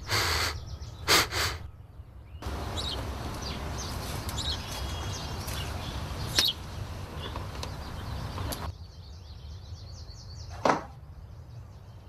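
A door being unlocked and opened: two short knocks, then about six seconds of scraping noise with a sharp click partway through, and another knock near the end. Birds chirp faintly.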